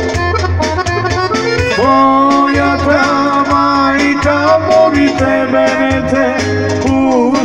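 Amplified Balkan folk band playing an instrumental break between sung verses: a wavering lead melody with vibrato and slides over a steady bass beat.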